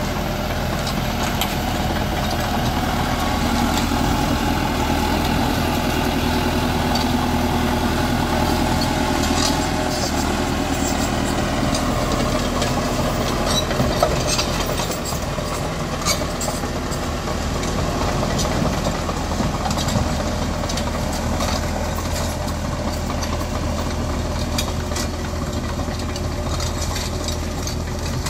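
Caterpillar D3K crawler dozer's diesel engine running steadily under load as the blade pushes soil and rocks, with scattered short clicks and clanks through it.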